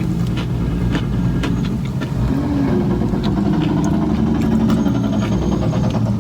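A truck engine running rough and loud close by, its pitch wavering a couple of seconds in, with scattered small clicks over it. It does not sound very good: a truck that probably needs to go into the shop.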